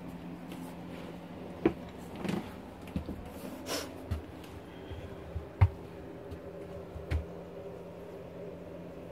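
Footsteps and handling knocks inside an RV as someone walks down the hallway into the bedroom: about half a dozen short thumps, the sharpest about two seconds in and again near the middle, and a brief rustle, over a steady low hum.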